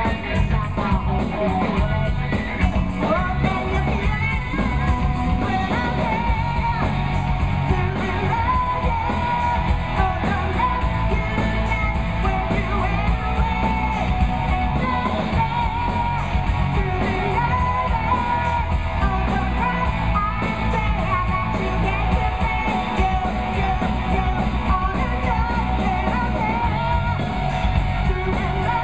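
Live rock band with electric guitars and drums backing a female lead singer.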